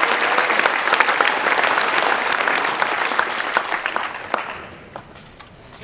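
Audience applauding in a school gym or auditorium, dense clapping that fades out over the last couple of seconds.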